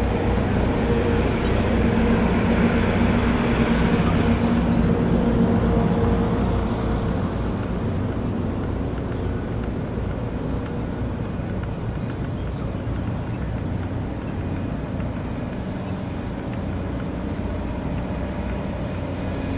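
Steady machinery drone with a low rumble. A humming tone is louder for about the first six seconds, then eases off.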